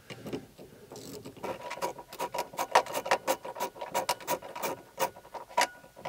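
Small socket ratchet clicking in quick, irregular runs as a bolt on the seat-belt mounting in a car's B-pillar is turned. The clicks begin about a second and a half in.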